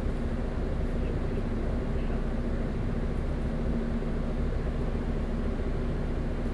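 Double-decker bus diesel engine running steadily, a constant low rumble with a steady hum through it.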